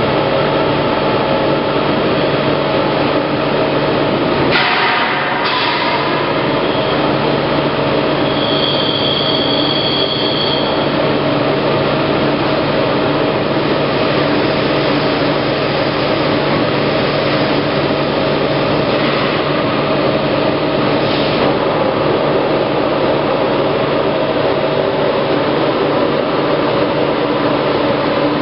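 Plate rolling machine running steadily as it rolls a steel sheet into a cylinder: a constant loud mechanical hum and rumble from the drive and rolls. There are a couple of short knocks about five seconds in and a brief high whine around nine to ten seconds in.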